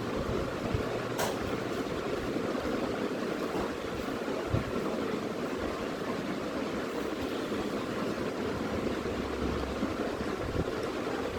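Steady rushing background noise with a few faint clicks and knocks.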